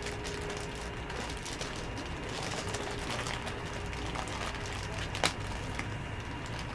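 Steady room hum with a faint, on-and-off tone, a few soft handling ticks, and one sharp click about five seconds in.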